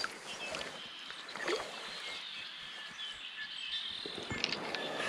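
Quiet outdoor ambience with faint, thin high chirping calls through the middle and a brief rustle about a second and a half in.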